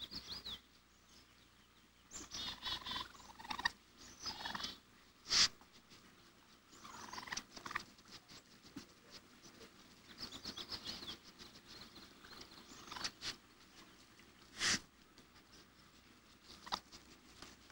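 Baby raccoons chirping and twittering in short, high-pitched runs while they clamber over each other, with two brief louder bursts, about five and fifteen seconds in.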